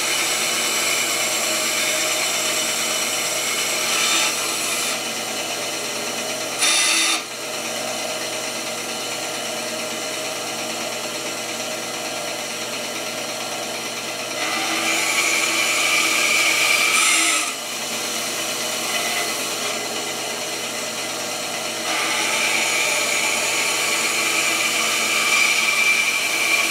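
Band saw running steadily and cutting through the wooden handle scales of a knife. The cut grows louder and brighter in two long stretches, midway and near the end, with a short louder burst about seven seconds in.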